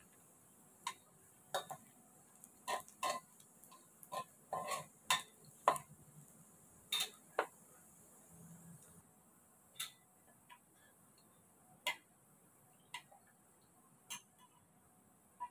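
A metal spatula clinking in a wok while diced pork fat fries in its own oil. The sharp, irregular ticks come thick and fast for the first several seconds, then slow to about one a second.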